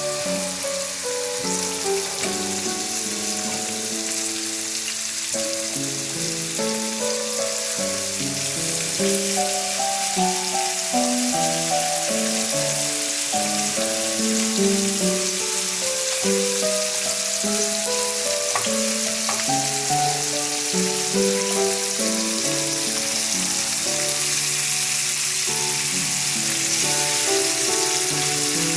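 Lamb chops sizzling steadily as they fry in ghee in a griddle pan, a continuous crackling hiss. A melody of background music plays throughout.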